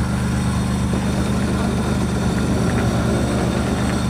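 Off-road SUV's engine running steadily at low revs as the vehicle crawls slowly down a rock ledge.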